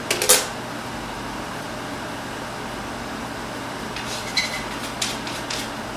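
Steady room hum with a few sharp clicks and knocks just after the start and again in a small cluster about four to five and a half seconds in, as a pool player handles his cue while stepping up to the table.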